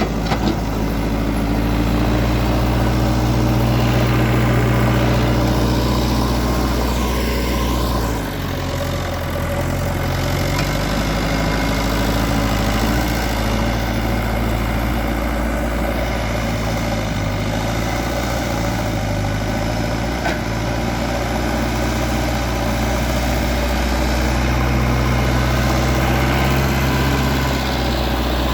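Backhoe loader's diesel engine running steadily, its note shifting about eight seconds in and rising again near the end as the load changes.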